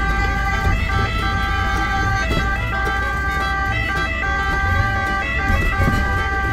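Ambulance two-tone siren sounding continuously, alternating between two pitches, heard from inside the cab over the steady low rumble of the vehicle's engine and tyres.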